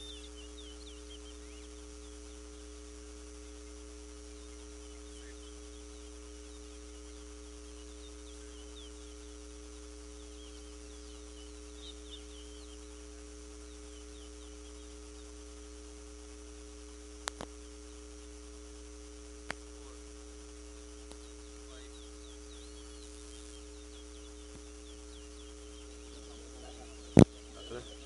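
A steady hum with several held tones at different pitches, under faint scattered high chirps of small birds. A few sharp clicks, one of them loud near the end.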